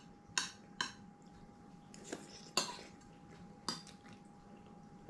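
A spoon clinking against a dish of soup while eating, with about five short, light clinks spread irregularly over a few seconds.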